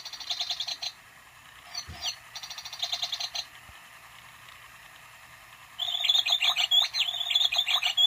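Battery-operated toy bird in a cage chirping and tweeting from its sound chip, over the steady whir of its small motor and gears, which the owner has just got running again. Quick runs of chirps come at the start and again two to three seconds in, then a longer, livelier twittering starts about six seconds in and runs on.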